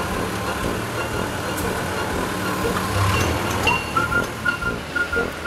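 Forklift engine running steadily with a low hum. About four seconds in, a whistled tune starts over it, a line of clear high notes.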